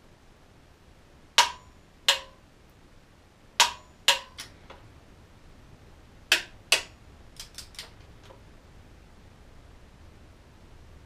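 Click-type torque wrench clicking as engine mounting bolts reach their set torque: three sharp double clicks, each pair about half a second apart, then a few lighter clicks.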